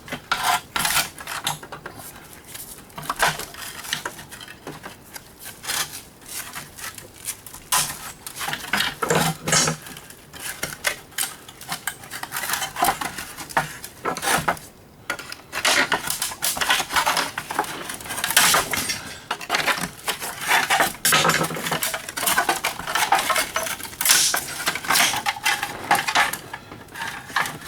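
An old Rival electric can opener being pulled apart by hand: its small metal and plastic parts clink, knock and rattle in irregular clatters.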